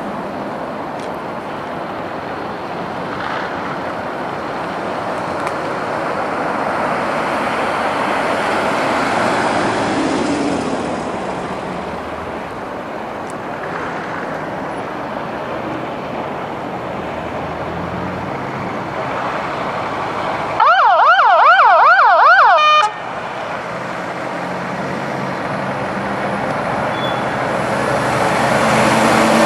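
Emergency vehicle sirens over a steady rush of traffic noise. About two-thirds of the way in, a loud siren swings rapidly up and down, about four times a second, for two seconds and then cuts off abruptly. Near the end another siren begins to rise.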